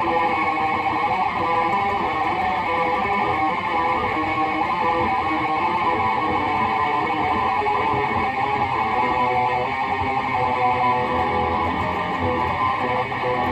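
Gibson Les Paul played through a Lone Wolf Audio Bullet Belt pedal into a Peavey 6505 high-gain amp and a 2x12 cab. The heavily distorted electric guitar is played without a break.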